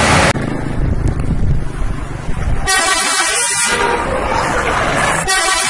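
Bus 'telolet' multi-tone air horn sounding: a low rumble, then one horn blast of about a second roughly three seconds in and another starting near the end.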